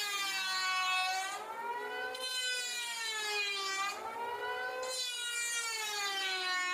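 Black & Decker electric wood planer running with a high motor whine that sags in pitch and recovers three or four times, as its cutter head loads up on passes through the wood.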